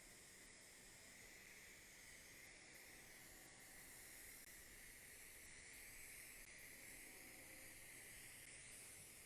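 Near silence with a faint, steady hiss.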